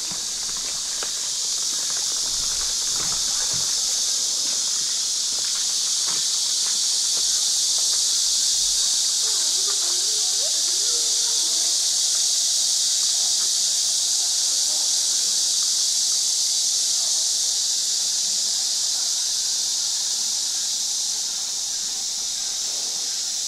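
Steady, high-pitched chorus of insects that swells slightly a few seconds in. Faint footsteps and distant voices sit underneath.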